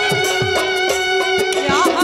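Bhojpuri folk song: a woman sings a long held note into a microphone, with a quick wavering ornament near the end, over steady drum strokes and instrumental accompaniment.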